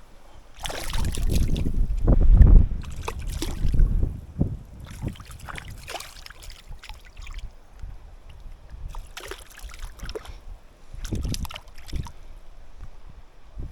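Water splashing and sloshing in irregular bursts, loudest about two to three seconds in, then lighter splashes.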